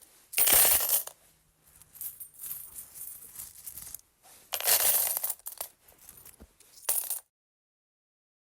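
Metal coins clinking and clattering in three loud bursts, about half a second in, around four and a half seconds in and briefly near seven seconds, with lighter scattered clinks between them. The sound cuts off just after seven seconds.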